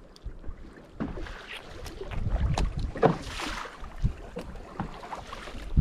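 Wind buffeting the microphone and water slapping against a small wooden canoe on a choppy sea, with scattered light knocks.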